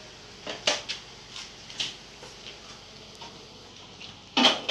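A few scattered light clicks and knocks, with one louder, sharper knock near the end.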